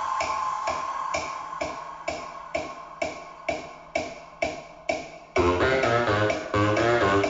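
Music played back through a Yamaha powered PA speaker. A beat of sharp hits comes about twice a second over a thinning build, then about five seconds in the full track drops in with heavy bass and a melody.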